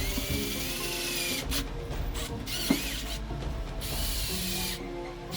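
Small electric drill boring a hole through the centre of a plastic toy-motor wheel hub, its whine bending in pitch and breaking off several times as the drill stops and starts.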